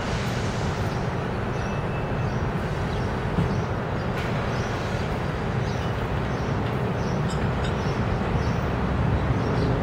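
New York City Subway train approaching on an elevated line: a steady, low rumble of wheels on the steel track structure that grows slightly louder near the end.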